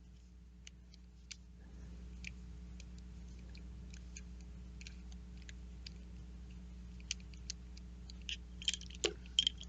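Scattered small clicks and ticks of a screwdriver and the metal and plastic parts of a Shimano 105 R7000 road shifter being handled during disassembly. The clicks come more often and louder in the last couple of seconds, over a faint steady hum.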